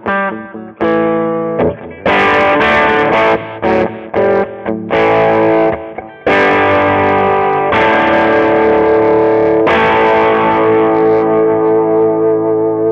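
Electric guitar fitted with Lace Alumitone humbucking pickups, played through an amplifier with some drive. A quick run of struck chords and notes leads into longer held chords, and a final chord near the end is left ringing.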